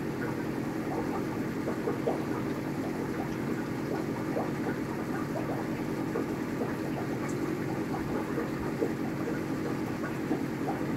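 Aquarium pump running with a steady hum, with many small bubbling pops of water over it.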